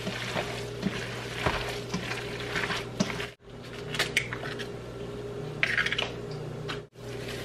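Gloved hands mixing raw ground meat in a stainless steel bowl, with soft squelching and light clinks against the metal, over a steady low hum. Dry oats are poured into the bowl near the end, and the sound cuts out briefly twice.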